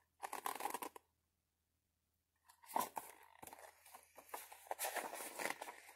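Paper pages of a picture book rustling as the book is handled and a page is turned: faint rustles near the start, a silent gap of about a second and a half, then a run of rustles over the last three seconds.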